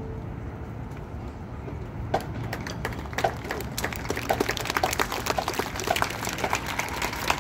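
Audience applause starting up after a marching band's show: scattered claps begin about two seconds in and quickly build into fuller clapping over a low crowd murmur.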